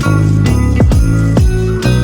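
Background Christmas-style music with jingle bells over sustained bass notes and a steady beat.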